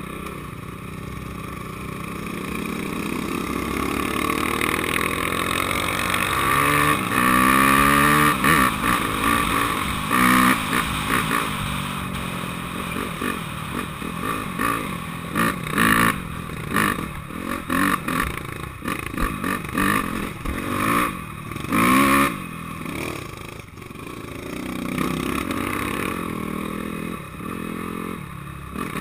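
Honda CRF250X dirt bike's single-cylinder four-stroke engine accelerating through the gears, the pitch climbing and dropping at each shift over the first ten seconds. After that the throttle is opened and closed in short surges.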